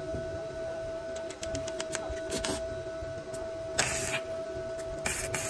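Stick welding on a steel gear: a few light ticks as the electrode touches, then three short bursts of crackling arc, each under a second, over a steady high hum.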